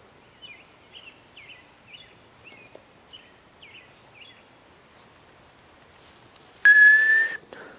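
A single loud, steady whistle near the end, a call to the puppies. Before it come faint, short, high chirps about twice a second for the first four seconds.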